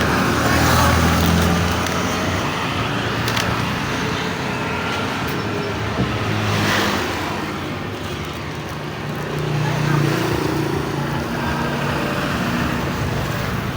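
Steady low rumble of background noise with faint voices underneath and a few light clicks.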